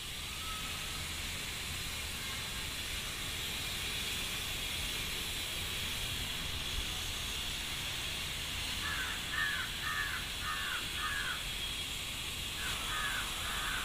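A bird calling in short repeated calls, about two a second: five in a row around the middle, then three more near the end, over a steady background hiss.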